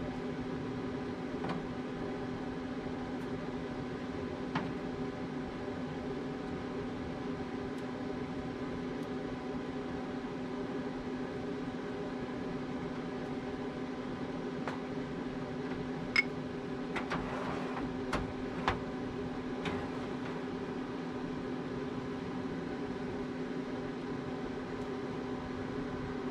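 A steady machine hum with a low drone and several overtones, like a running fan or motor. A few light clicks and taps come through, most of them a little past the middle.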